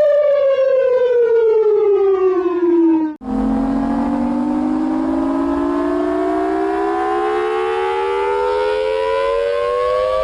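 Outdoor warning siren played backwards. A siren tone with many overtones slides down in pitch for about three seconds and cuts off abruptly. A second siren, sounding a two-note chord, then starts low and slowly rises in pitch.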